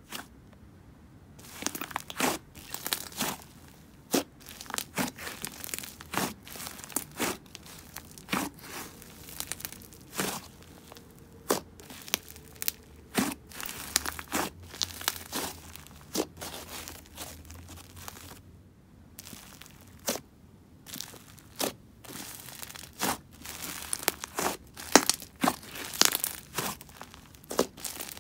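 Hands kneading and squeezing a thick, fluffy clay slime that is slightly overactivated, making irregular sticky crackles and pops several times a second, loudest near the end.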